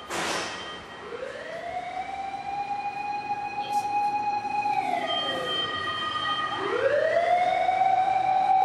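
Ambulance siren wailing, getting louder. Its pitch rises about a second in and holds, sinks around five seconds in, then rises again and holds. The puppy does not howl along.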